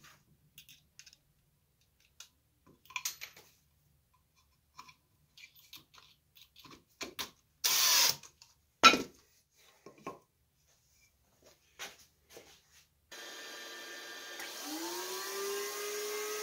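Scattered clicks and knocks of wood and tools being handled, with a short burst from a DeWalt cordless drill driving a screw about eight seconds in and a sharp knock just after. About thirteen seconds in a table-mounted router switches on, its whine rising as the motor comes up to a steady speed.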